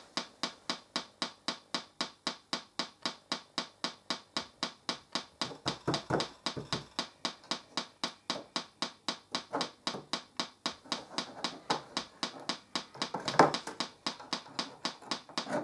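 A TPA3122D2 Class D amplifier board popping through its speaker over and over, about four pops a second, as it fails to start up. The owner suspects a bad solder joint or the IC dropping in and out of shutdown.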